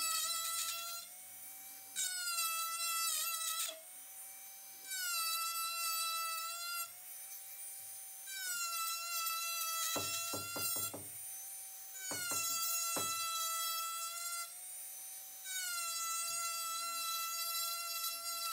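A small electric power tool's motor whining in repeated bursts of one to two seconds, its pitch sliding down as each burst begins. A quick run of knocks about ten seconds in and a few more around twelve seconds.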